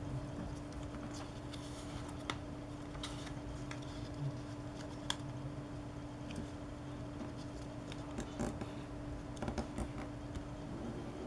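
A small strip of paper being folded and creased by hand: scattered soft rustles and small sharp clicks, over a steady low hum.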